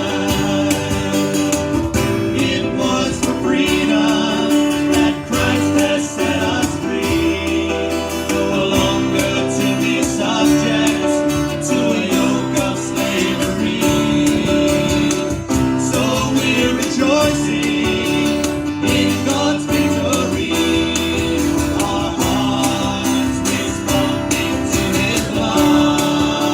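Worship song: singing over acoustic guitar accompaniment, continuous and steady in level.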